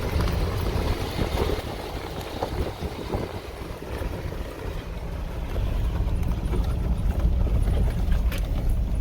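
Interior noise of an off-road vehicle crawling a rough dirt trail in four-wheel-drive low range: a low engine and drivetrain rumble with tyre and body noise, getting louder about halfway through.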